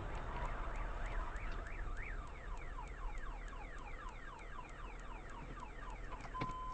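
Car alarm sounding in a fast repeating pitch sweep, about three sweeps a second, set off by the multi-car collision just ahead, heard from inside a car over a low steady rumble.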